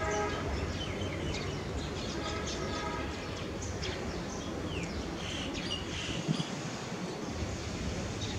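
Outdoor background noise with short, high bird chirps and the hum of distant traffic; a steady pitched tone, like a distant vehicle horn, sounds briefly about two seconds in.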